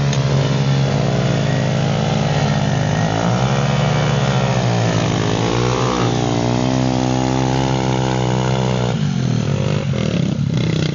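Small dirt-bike engines revving, rising and falling in pitch, then holding a high steady note for a few seconds before dropping off about nine seconds in.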